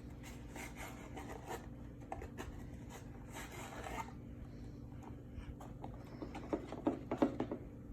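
A spoon scraping and stirring in a bowl of glue slime mixture as baking soda is worked in, with irregular rubbing scrapes and small clicks and a few sharper clicks near the end.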